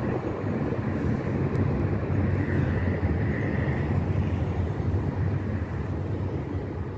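Steady road noise heard from inside a moving vehicle: a low engine and tyre rumble, with a faint high whine briefly around the middle.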